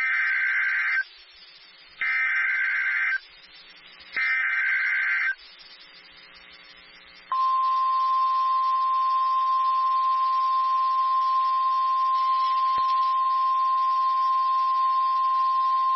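NOAA Weather Radio emergency alert signal: three one-second bursts of SAME digital header data, a second apart. After about two seconds of near-quiet comes the steady single 1050 Hz warning alarm tone, held for about nine seconds, which announces that a warning message follows.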